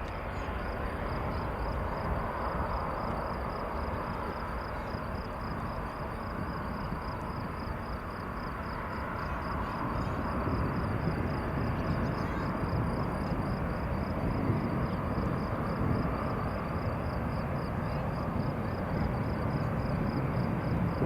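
Airbus A320 jet engines running at taxi power, heard at a distance as a steady rumble and hiss that grows a little louder about halfway through.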